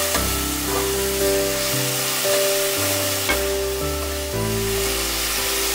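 Onion-tomato masala sizzling in hot oil in a steel kadai while it is stirred with a steel spoon, with a few light scrapes of the spoon on the pan, over background music of sustained notes.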